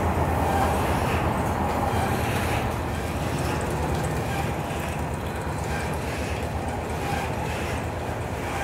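Steady machinery drone in the below-deck fish factory of a fishing trawler: a constant low hum under a noisy mechanical wash.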